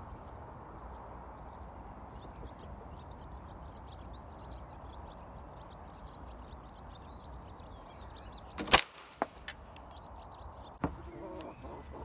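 Electromagnetic coil gun firing a 5.5 mm nail at a plastic tub: one loud sharp crack with a brief ringing tail about nine seconds in, then a few faint ticks and a smaller click about two seconds later.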